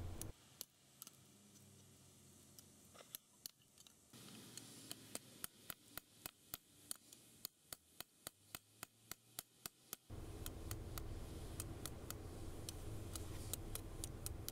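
Hammer striking a red-hot file blade laid on a rock used as an anvil, forging the point: a steady run of sharp clicks, about two to three blows a second.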